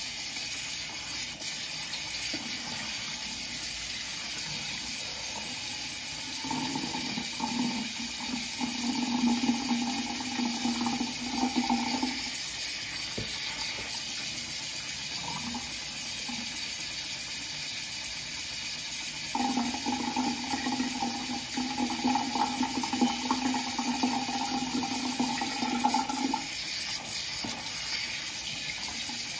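Bathroom sink tap running with a steady hiss. Twice, for about five to seven seconds each time, a louder low hum joins in and then stops.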